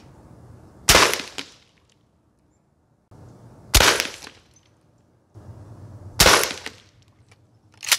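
12-gauge Mossberg 535 shotgun firing reduced-charge subsonic slug loads with a half charge of the factory powder: three shots roughly two and a half seconds apart, each a sharp report with a short ringing tail, and a shorter, sharper bang near the end. The loads have hardly any power behind them.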